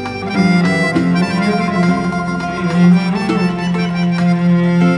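Instrumental background music: sustained melodic notes over a steady low held note.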